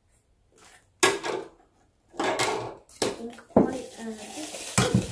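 Hard plastic toy lab parts knocking and clattering as they are handled, a series of irregular clatters.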